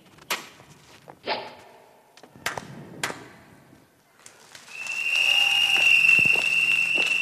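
Staged show sound effects: four sharp whip-like cracks in the first three seconds, one with a short whoosh. About four and a half seconds in, a loud sustained sound starts, holding one steady high tone, as the backing music comes in.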